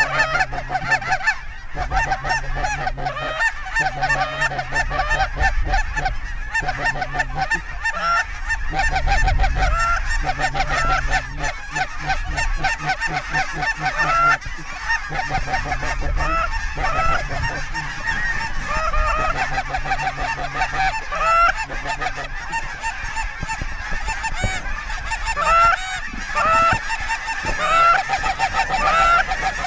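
A large flock of geese honking, with many short upturned calls overlapping continuously.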